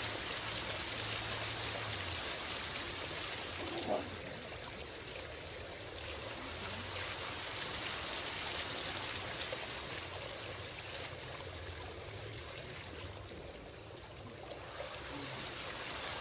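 Five pump-fed fountain jets splashing steadily down onto river rock and into the reservoir water. There is a brief knock about four seconds in, and the splashing eases slightly for a moment near the end.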